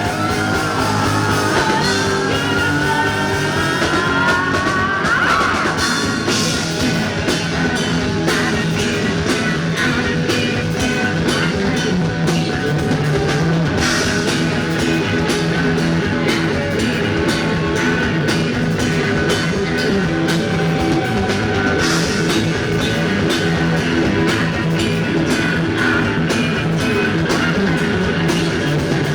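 Live rock band playing an instrumental passage: guitars over bass and a driving drum kit, with sliding, rising guitar notes in the first few seconds.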